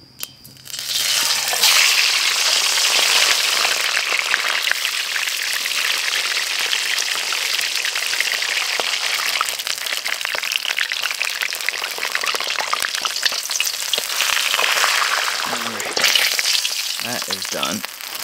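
Whole mangrove snapper frying in hot grapeseed oil in a steel wok: a loud, steady sizzle that starts suddenly about a second in as the fish goes into the oil.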